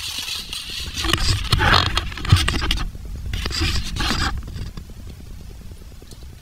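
Hand-handling noise: scraping and rustling of a plastic cotter-pin assortment case and needle-nose pliers, with small clicks, fading to quiet in the second half as the pliers work at the brake pedal's cotter pin.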